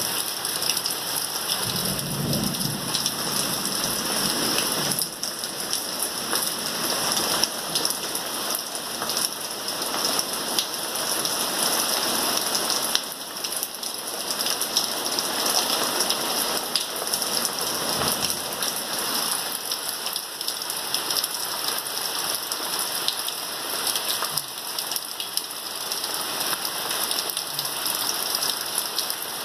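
Heavy rain pouring steadily, dense and loud, with a brief low rumble about two seconds in.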